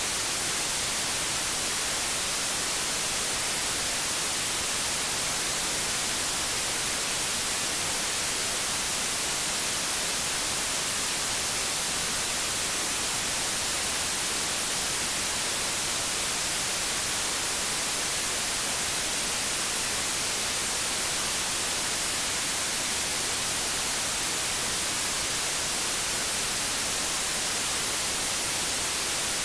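Steady white noise: an even, unchanging hiss, brightest in the high end.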